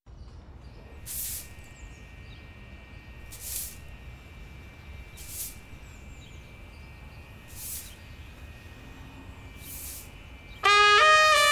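Low rumbling ambience with a faint steady high tone and a short hiss repeating about every two seconds, five times in all. Near the end, loud music comes in suddenly with a stepped melody.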